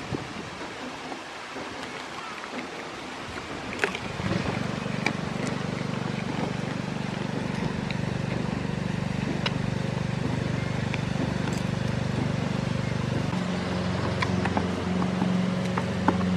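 Lawn mower engine running steadily. It comes in about four seconds in, then grows louder with a change in its note near the end.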